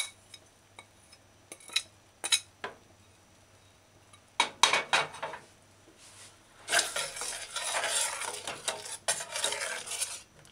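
A metal spoon clicks and scrapes a few times on a ceramic plate, knocking dried herbs off it. About two-thirds of the way in it starts stirring coconut milk in a stainless steel saucepan: a steady scraping swish.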